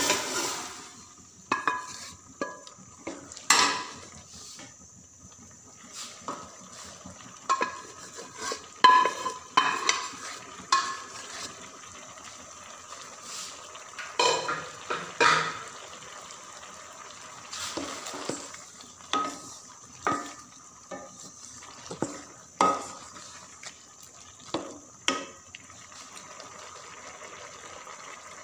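A spatula scraping and knocking against the inside of a metal pot as cooked chickpeas are tipped in from a pressure cooker and stirred. The clanks come irregularly, some with a short metallic ring, with quieter scraping between them.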